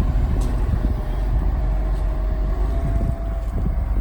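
John Deere 690B excavator's diesel engine running steadily as a deep, even rumble, with wind buffeting the microphone.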